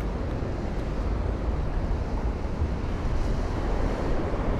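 Wind buffeting the microphone over the steady wash of sea surf breaking on a rocky shore.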